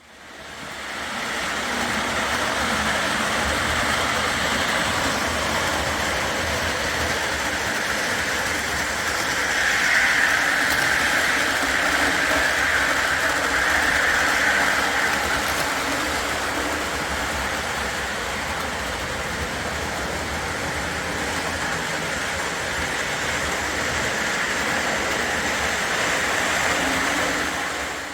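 O gauge model train running on three-rail track: a steady rolling rumble of metal wheels and motor hum, a little louder for a few seconds in the middle.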